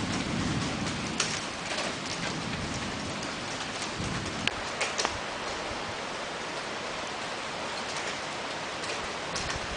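Hailstorm with heavy rain pelting down: a steady hiss of falling rain with scattered sharp ticks of impacts.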